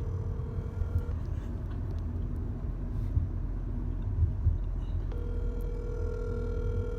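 Telephone ringback tone from a phone's speaker: a steady ringing tone heard twice, each ring about two seconds long and four seconds apart, while the outgoing call waits to be answered. A low car-cabin rumble runs underneath.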